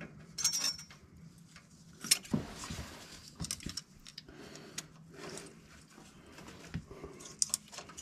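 Scattered light metallic clicks and jingles from a feeler gauge and rocker arm being handled while the valve lash is checked on an air-cooled Volkswagen engine. The sharpest click comes about two seconds in. This number two exhaust valve has more lash than the others.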